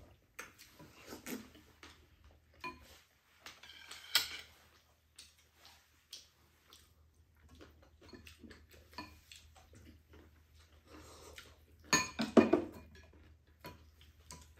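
Chopsticks and spoons clicking and scraping against ceramic bowls and a metal pan of glass noodles, with scattered eating sounds. The clatter comes in short, irregular bits, loudest in a run about twelve seconds in.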